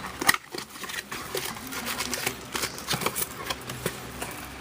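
Quick crinkling and clicking of packaging and cardboard as a mini box of trading cards is unwrapped and opened, with a sharp snap about a third of a second in.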